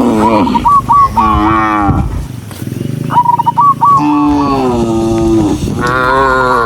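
Cattle mooing: several loud moos in quick succession, overlapping one another, the first falling in pitch and the longest held for about a second and a half.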